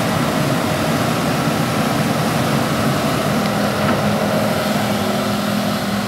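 A hydraulic crawler excavator's diesel engine running steadily as the machine digs mud.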